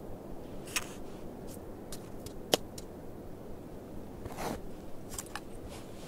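Scattered crunches and scrapes of snow being scooped and pressed into a small cooking pot by hand, with a sharp click about halfway through and a longer scrape a couple of seconds later.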